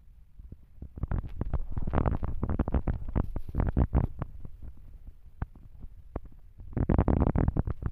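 Close, irregular rustling and crackling from kittens moving and nuzzling against the microphone. It starts about a second in, thins out midway and picks up again near the end.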